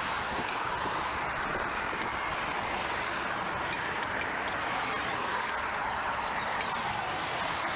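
Steady highway traffic noise from vehicles passing at speed: a constant rush of tyre and wind noise.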